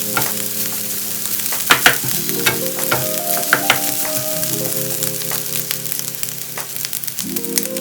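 Food stir-frying in hot oil in a pan: a steady sizzle with stirring and a few sharp taps against the pan, over soft background music.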